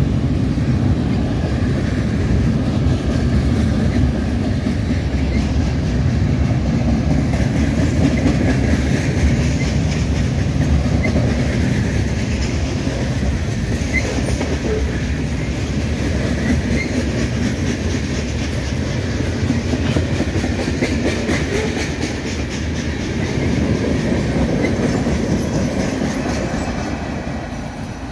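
Freight cars of a long freight train rolling past close by: a steady low rumble with steel wheels clicking over the rail joints, easing slightly near the end.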